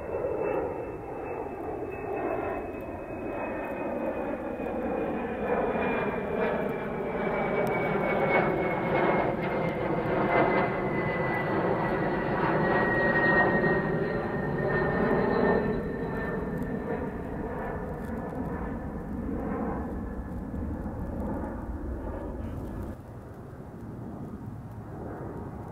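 Twin-engine jet airliner climbing out overhead after takeoff: a steady jet roar with a high fan whine that falls slowly in pitch as it passes. It is loudest around the middle and fades toward the end.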